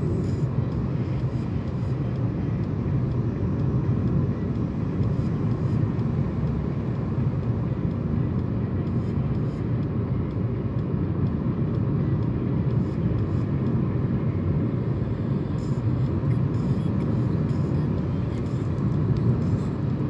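Steady low road noise inside a moving car's cabin at expressway speed: tyres and engine heard through the closed windows, with no break or change.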